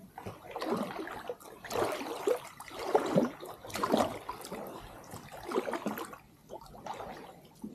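Kayak paddle dipping and splashing into the water in repeated strokes, roughly one a second, with water trickling off the blade between strokes.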